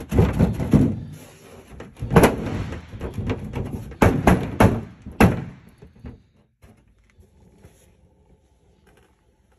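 A run of heavy knocks and thuds, about half a dozen hits over five seconds, then quiet: hands-on work on the nose section of a T-28B fuselage while its lower skin is being taken off.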